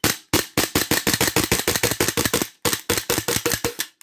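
KJW SIG Sauer P226 gas blowback airsoft pistol firing in rapid semi-automatic succession, about six or seven sharp shots a second, with a brief pause about two and a half seconds in before the shooting resumes.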